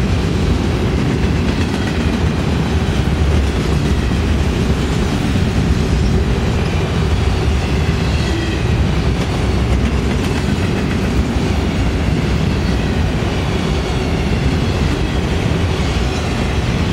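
Freight train of autorack cars rolling past close by: a steady rumble of steel wheels on rail.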